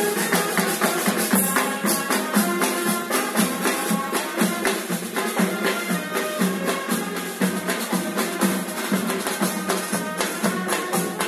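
Music with a steady drum beat and percussion under a melody of held notes, playing throughout.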